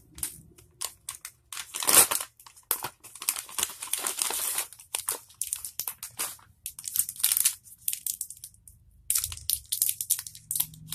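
Plastic candy wrapper crinkling and tearing as it is handled and opened by hand, in irregular crackles with a brief lull about eight seconds in.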